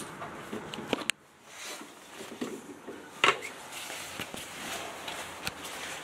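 Light handling noise: a few small clicks and knocks over a low background hiss, the sharpest click a little over three seconds in.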